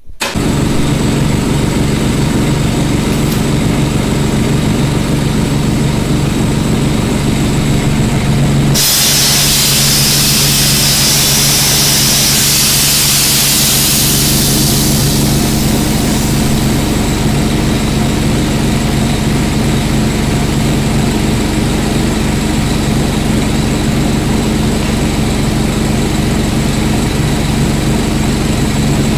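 Heavy engine idling steadily. About nine seconds in, a loud hiss of air starts suddenly and fades away over the next several seconds.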